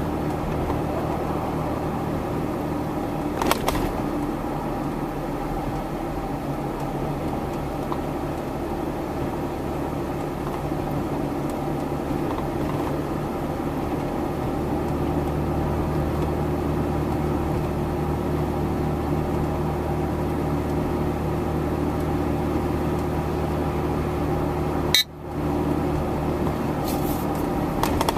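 A steady mechanical hum made of several low, unchanging tones, which cuts out suddenly for a moment near the end.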